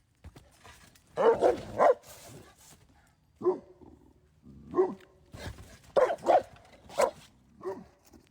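Boerboel barking in short deep barks, about nine in loose clusters, with a few dull thuds between them.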